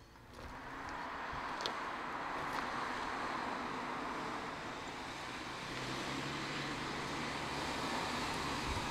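2014 MINI Hatch driving along a road: a rush of tyre and wind noise that swells over the first second as the car comes near, then holds steady, with a low engine hum joining about six seconds in.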